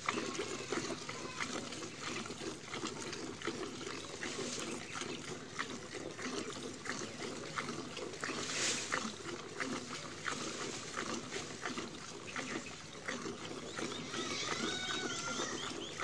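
Milk squirting into a steel bucket as a cow is milked by hand: a steady run of short hissing squirts. Near the end an animal calls.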